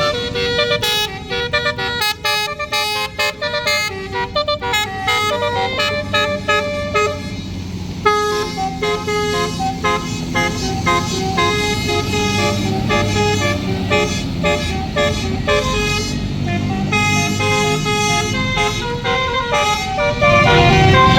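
Basuri multi-tone musical bus horn (telolet) playing a melody of quick stepped notes, over the low rumble of the bus engine. It gets louder near the end.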